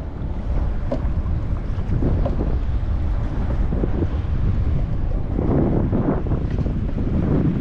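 Strong wind buffeting the microphone as a low rumble, with water splashing and lapping around a kayak, heavier for a second or so past the middle.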